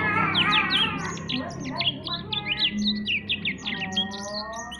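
Young black-throated canary singing: a fast, unbroken string of short, high chirps and sweeping notes.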